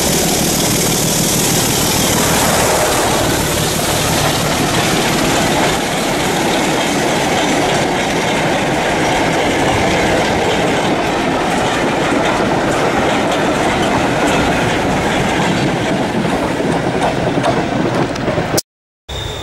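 Class 24 diesel locomotive D5054 running past with a train of goods wagons. Its engine is heard as it approaches, then the wagons' wheels clatter over the rail joints as they go by. The sound cuts off abruptly near the end.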